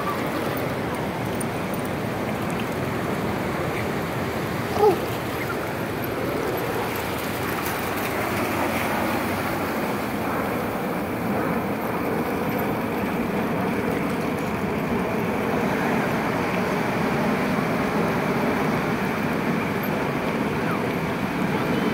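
Steady wash of ocean surf breaking and running up a sandy beach, growing a little louder partway through. About five seconds in there is a single brief, loud pitched sound.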